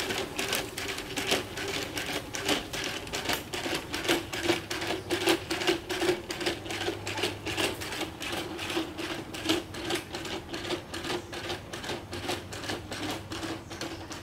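Quad A1 quadruped robot walking: its feet tap rapidly and evenly on bricks and brick paving, several footfalls a second, over a steady whine from its brushless (BLDC) leg motors.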